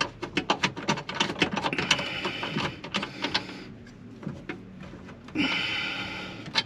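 Small metal parts clicking and rattling in a quick run as a nut is worked onto a threaded bolt on a brake-light switch bracket, thinning out after a few seconds; a short scraping rustle about five and a half seconds in.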